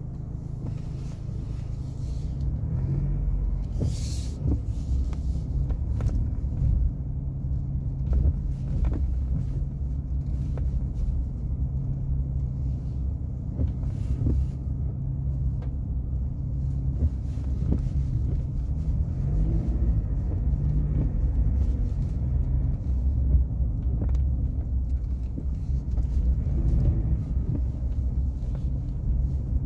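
Ford Wildtrak pickup being driven: a steady low engine and road rumble, with scattered light knocks from the road or body.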